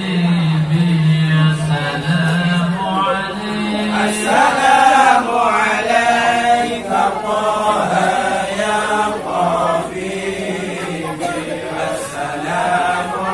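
A group of men chanting together in a hadrah devotional chant, the melody moving in long phrases over a low held note during the first few seconds.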